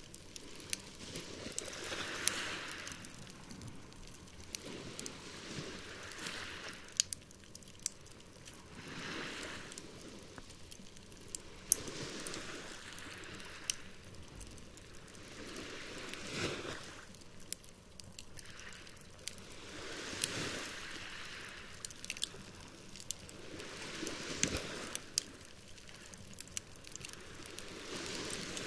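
Campfire crackling, with frequent sharp pops and snaps, over waves washing ashore in slow swells every three to four seconds.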